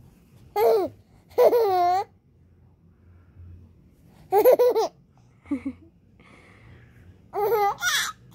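Six-month-old baby squealing and babbling in about five short, high-pitched bursts whose pitch rises and falls, some of them laugh-like, with quiet gaps between.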